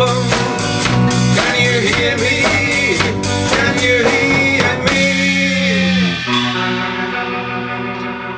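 Live blues-rock trio playing: electric guitar, electric bass and drum kit, with singing. About five seconds in the drums drop out and held guitar and bass notes ring on.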